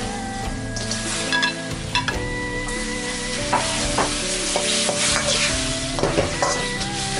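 Shrimp sizzling in fish-sauce caramel in a wok while a metal ladle stirs and tosses them, scraping the pan and knocking against it several times.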